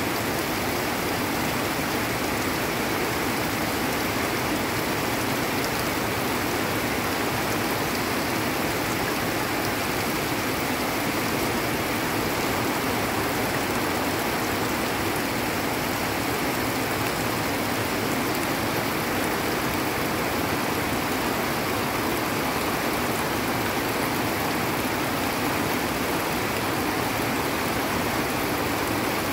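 Heavy rain falling together with muddy rainwater runoff rushing down a hillside channel: a steady, unbroken rush of water.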